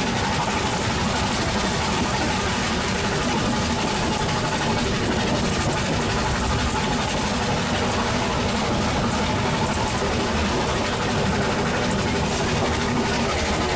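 Narrow-gauge train running steadily, heard from the carriage right behind the locomotive: a constant rumble of the engine and wheels on the track.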